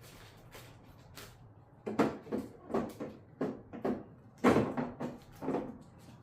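Hard plastic knocks and clacks from a tail-light housing being pushed and worked against the car body to seat it. The housing is not seating, which may be down to its gasket. A few faint ticks come first, then a quick run of about a dozen knocks, the loudest near the middle.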